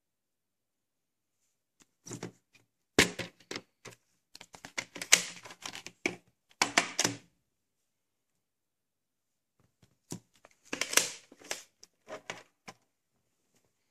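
Plastic VHS clamshell case and videocassette being handled: clusters of sharp plastic clicks and rattles as the case is opened and the tape is taken out and set down, in two spells a few seconds apart.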